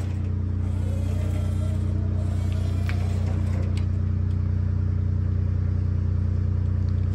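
Scissor lift's hydraulic lift motor humming steadily as the platform rises, with a couple of light clicks partway through.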